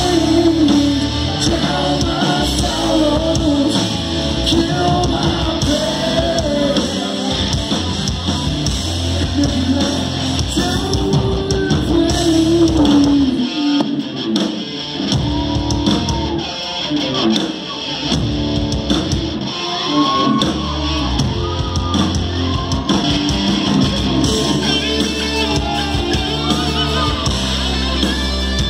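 Live hard rock band playing: electric guitars, bass and drums under a sung lead vocal, heard from within the crowd.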